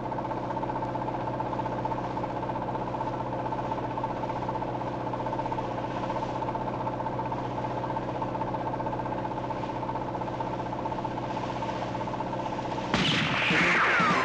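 A boat engine drones steadily at a constant pitch. Near the end, a sudden loud burst cuts in over it.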